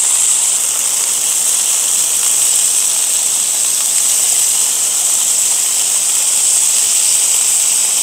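Pork belly sizzling on a hot cast iron griddle: a steady, high hiss.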